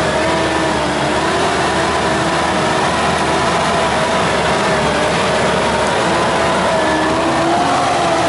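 Mitsubishi Pajero 4x4 crawling slowly over a rough forest track, its engine running steadily with a high whine that wavers slightly in pitch.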